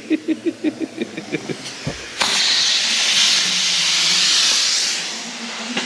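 Compressed air blown through the vibratory plate compactor's directional valve to test it. First a fast fluttering puff-puff-puff, about five pulses a second, dying away. Then, about two seconds in, a loud steady hiss of air rushing through for about three seconds, easing off near the end.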